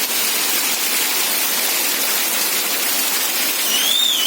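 Heavy rain falling, a steady hiss. Near the end, a short high whistle rises, holds and falls once, about half a second long.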